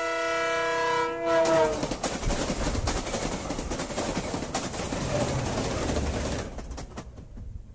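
A train horn sounds one held multi-note chord for about a second and a half. It gives way to the rumble and rapid clatter of a passing train's wheels on the rails, which fades out near the end.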